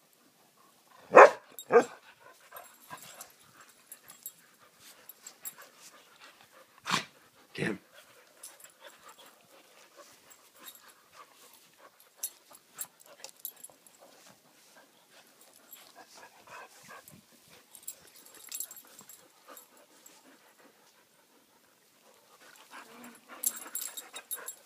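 Two dogs, a wolf-like dog and a white pit bull, wrestling and mouthing each other, with soft scuffling throughout. A quick pair of short, loud dog vocal sounds comes about a second in, and another about seven seconds in.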